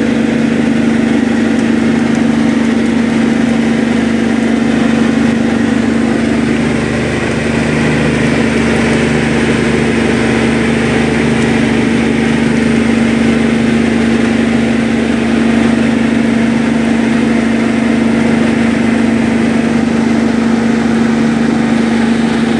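Fishing boat's engine running steadily, a loud constant drone with a low hum.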